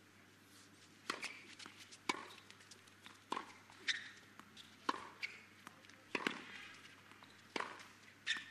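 Tennis serve and rally on a hard court: about eight sharp racket strikes and ball bounces, roughly one a second, starting about a second in.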